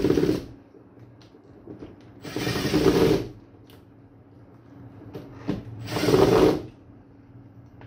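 Makita brushless cordless driver running terminal screws down on miniature circuit breakers in short bursts about a second long: one ending just at the start, then two more about three seconds apart.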